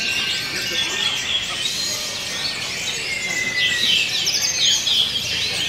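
Orange-headed thrush song: a dense, continuous run of overlapping whistled phrases and quick chirps.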